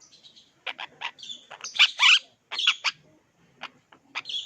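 Parrots calling: a quick run of short, sharp calls, loudest about two seconds in, with a few scattered calls near the end.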